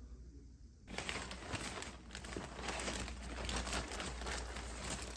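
Plastic mailer bags and polythene packaging crinkling and rustling as they are rummaged through by hand, starting about a second in.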